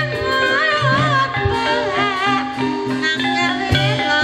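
Javanese gamelan music accompanying an ebeg dance: metallophones and drums keep a steady beat under a high, wavering melody line.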